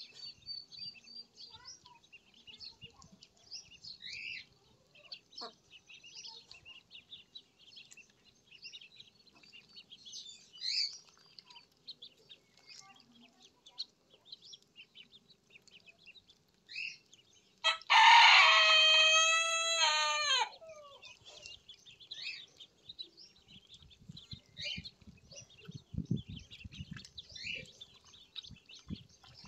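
Ducklings peeping in high, scattered chirps, with a rooster crowing once, loud and drawn out over about two and a half seconds, its pitch dropping at the end, a little past the middle.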